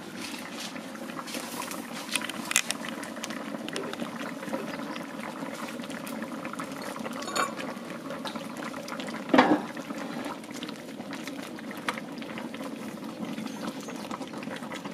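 A large pot of fish and meat light soup with okra boiling on a fire, bubbling steadily with many small pops and ticks. A brief louder knock or clatter comes about nine seconds in.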